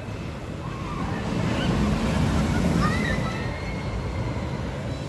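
Wind rushing over the microphone with a low rumble, as on a moving Tennessee Tornado steel roller coaster train, swelling about two seconds in, with a few faint high voices over it.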